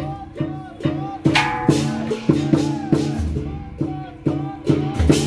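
Dragon-dance percussion music: drum strikes with ringing metal tones in a steady beat of about two to three a second.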